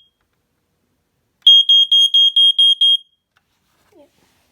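Ionization smoke alarm's horn sounding on a test: a loud, high-pitched beep pulsed rapidly, about five beeps a second, starting about a second and a half in and cutting off after about a second and a half.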